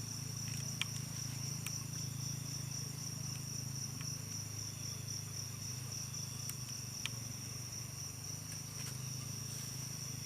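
Steady chorus of night insects, a continuous high trill, over a low steady hum, with a few faint clicks.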